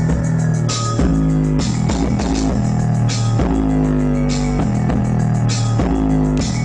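Bass-heavy rock music: deep sustained bass notes that change every second or so, over drums with a regular cymbal hit and guitar.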